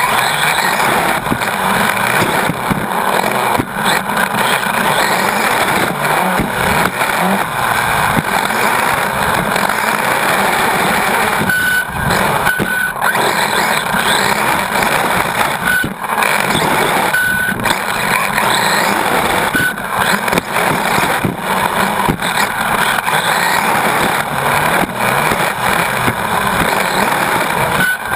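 Onboard sound of a Team Associated RC8.2 brushless electric 1/8-scale buggy racing on a dirt track: a loud, steady rush of drivetrain, tyre and chassis noise heard from the car itself. Short sharp knocks come every few seconds.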